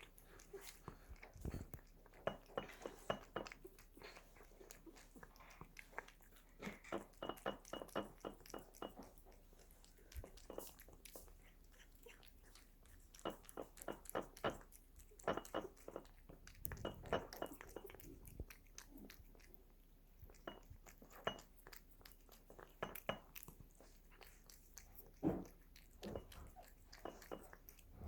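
A cat chewing and biting a treat: runs of quick sharp clicks in short bursts, with brief pauses between them.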